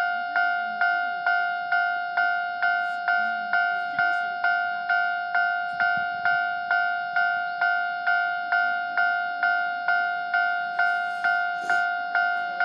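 Japanese railway level-crossing warning bell ringing steadily, an evenly repeated electronic 'kan-kan' tone at about two and a half strikes a second, sounding while the crossing is closed for an approaching train.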